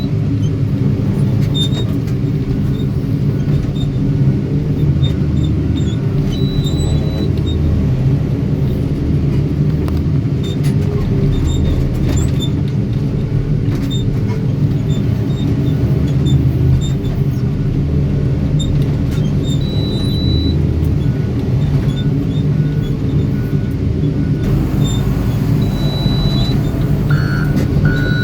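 Heavy construction machine's diesel engine running with a steady low rumble. Near the end a reversing alarm starts, beeping repeatedly.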